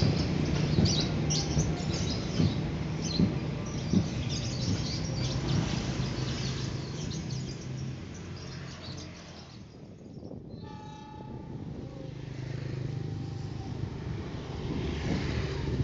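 Passenger train coaches rolling past on the rails, a steady rumble with repeated wheel clacks over the rail joints, fading as the last coach goes by. About two-thirds of the way through comes a brief horn tone, then the rumble of a train rising again near the end.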